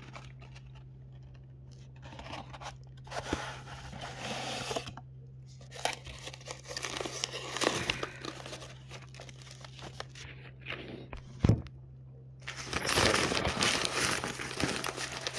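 Crinkled paper wrapping being pulled, crumpled and torn off a glass in irregular rustles, denser and louder near the end, with one sharp knock partway through. A steady low hum runs underneath.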